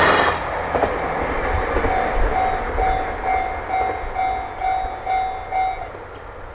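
The tail of a KiHa 261 series diesel express train passing over the crossing fades about half a second in. Then a railway level crossing's electronic warning bell rings, about two dings a second, and stops near the end as the crossing clears.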